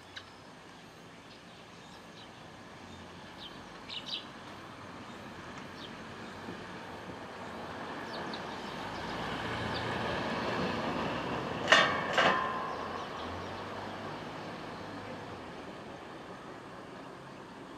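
A vehicle passing, its noise swelling slowly over several seconds and then fading away, with two short, sharp, loud sounds close together just after its peak. A couple of faint sparrow chirps come a few seconds in.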